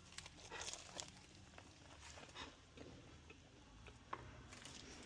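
Faint mouth sounds of a person biting into and chewing a stuffed pita sandwich, with scattered soft crackles and clicks.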